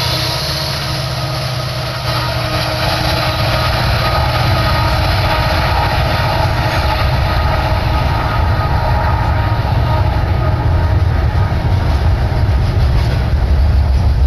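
BNSF double-stack container train rolling past at close range: a steady rumble of wheels on rail, growing a little louder toward the end.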